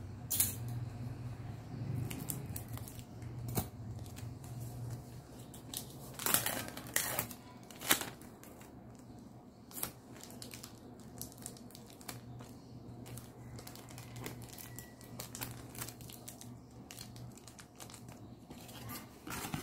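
Packing sounds: a cardboard backing and its plastic sleeve are handled and tape is pulled and torn, giving scattered sharp crinkles and taps over quieter rustling. The loudest crackles come about six to eight seconds in, and a low steady hum runs underneath.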